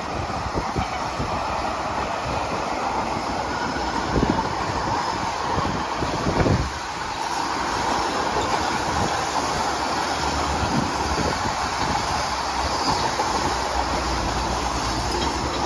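Empty wire-mesh sugarcane bins on Tully Mill's 2 ft gauge cane railway rolling past: a steady wheel-on-rail rumble with clicking over the rail joints and two louder knocks, about four and six and a half seconds in.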